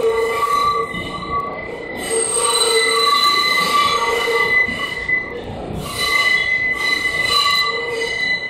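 Subway train's steel wheels squealing on a sharp curve of track. The squeal holds several steady pitches at once and fades and swells every second or two, over the train's running noise.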